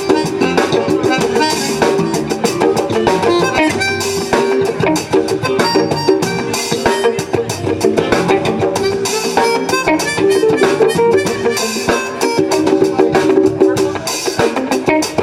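Live funk band jamming, with a drum kit and guitar, playing a continuous groove.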